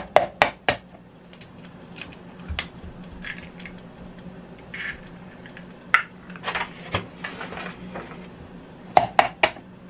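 Raw eggs tapped and cracked against a plastic measuring cup: clusters of sharp clicks and knocks near the start, around six to seven seconds in, and again around nine seconds in, over a faint steady low hum.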